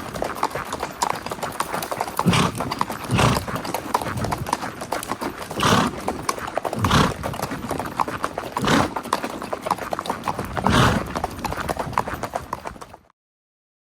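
Spotted saddle horse's hooves clip-clopping in a quick, steady rhythm, with several louder bursts of noise about every second or two. The sound cuts off abruptly near the end.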